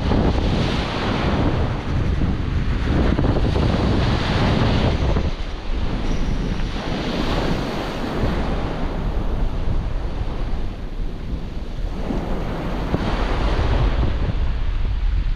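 Small surf breaking and washing up a pebbly beach, swelling and easing with each wave, with a stiff onshore wind buffeting the microphone in a low rumble.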